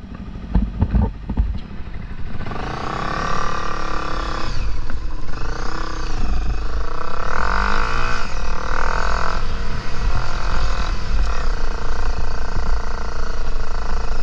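On-board sound of a dirt bike's engine, coming up about two seconds in and rising and falling in pitch as the throttle is worked, then running steadier. A low rumble of wind and bumps lies underneath.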